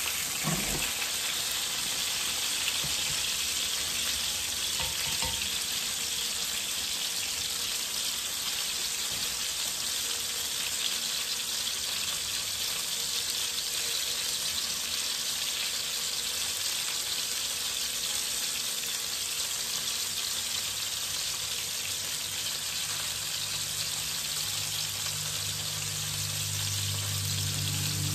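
Cod fillets sizzling in hot oil in a frying pan, a steady hiss. A low hum comes in near the end.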